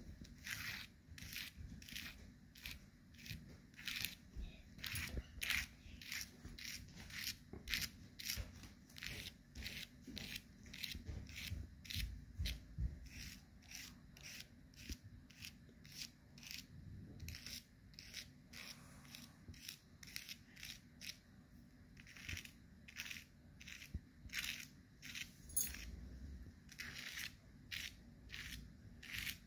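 Fingers scratching and pushing rangoli powder across a sheet of paper, giving short crisp scratches, two or three a second.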